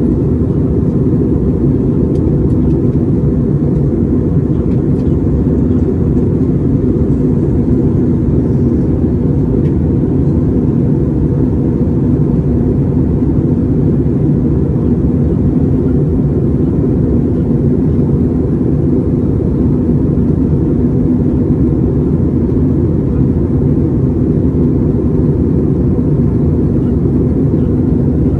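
Jet airliner cabin noise in flight, heard at a window seat: engines and rushing airflow making a loud, steady low rush with a faint even hum.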